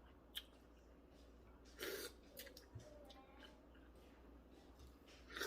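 Near silence, with a sharp click about half a second in, a short rustle about two seconds in and a few fainter ticks.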